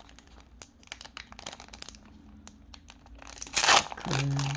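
Foil booster pack wrapper crinkling as it is handled and torn open: a run of small crackles, then a louder rip about three and a half seconds in.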